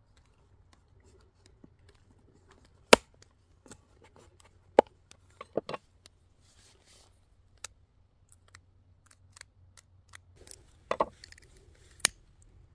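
A dozen or so irregular sharp clicks and knocks over a quiet background, the loudest about three seconds in and a cluster near the end.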